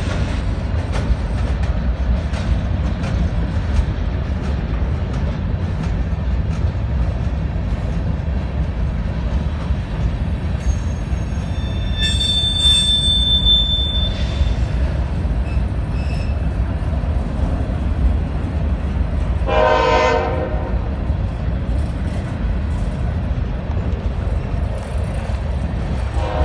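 Long CSX freight train of covered hopper cars rolling slowly past, a steady low rumble of wheels on rail. A brief high wheel squeal comes about halfway through, and a short train-horn blast of about a second near the end.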